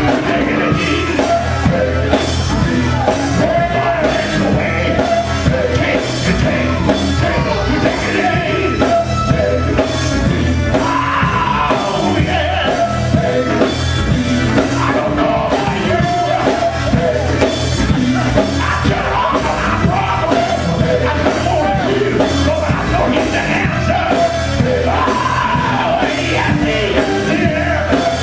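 Live gospel group music: a lead singer singing into a microphone over electric guitar, bass guitar and a drum kit, with a steady beat.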